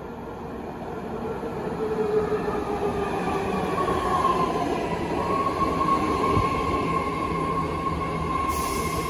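A BART Fleet of the Future subway train pulls into an underground station platform. It grows louder as it comes in and slows, with a whine that falls in pitch and a steady higher tone. A high hiss starts near the end.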